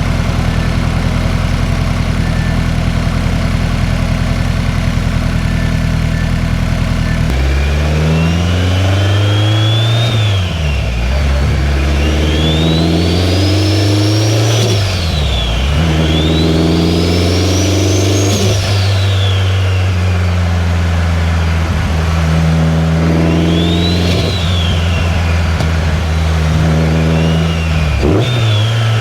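2003 Subaru WRX's turbocharged flat-four engine idling steadily for several seconds, then pulling away and accelerating through the gears, its pitch climbing and dropping at each shift. It then settles to a steady cruise, with one more short rise and fall near the end.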